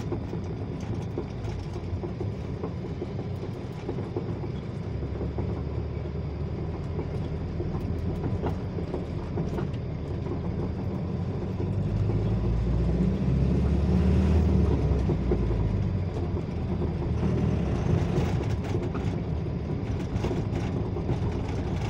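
Volkswagen truck's engine and road noise heard from inside the cab while driving slowly, a steady low rumble that grows louder about halfway through for a few seconds, then eases back.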